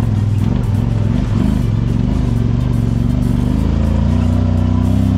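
An engine running steadily, its pitch wavering up and down slightly, with background music mixed in.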